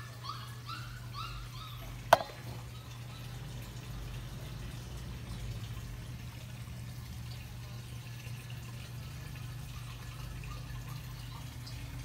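Water trickling and dripping in an aquaponic system's bamboo NFT channels, over a steady low hum. A quick run of short bird chirps in the first second and a half, and one sharp click just after two seconds in.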